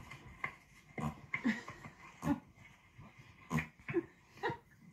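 A horse passing gas while walking: a string of about eight short farts, irregularly spaced.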